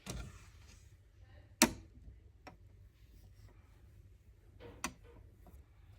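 A few light knocks and clicks from dolls and dollhouse pieces being handled and set down. There are four in all, the sharpest and loudest about one and a half seconds in.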